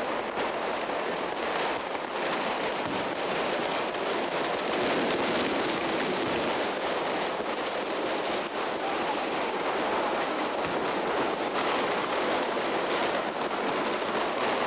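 Dense, continuous crackle of festival fireworks and firecrackers: many small bangs merging into a steady din, with no single big boom standing out.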